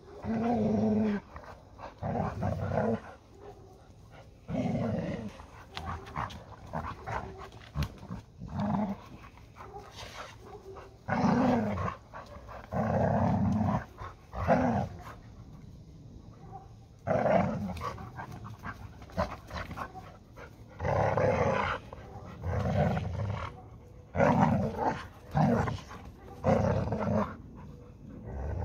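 A Hungarian Vizsla and a yellow Labrador Retriever growling in play as they wrestle and tug over a ball. The growls come in repeated short bouts, each about a second long, every second or two.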